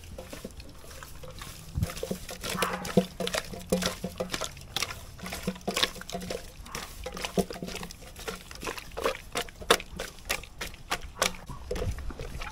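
Raw octopus being kneaded and rubbed with Hawaiian salt by hand in a stainless steel pan: wet squelching with many irregular slaps and clicks, busiest from about two seconds in. This is the salt massage (lomi) that works the slime out of the octopus.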